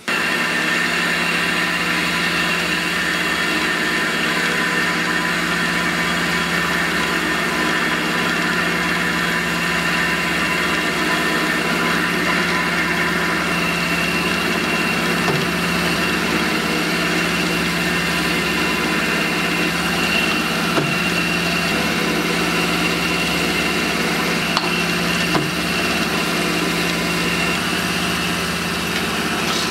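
Clausing vertical milling machine running steadily, its spindle turning a center drill that spot-drills holes in an aluminium ring, with a few brief faint clicks in the second half.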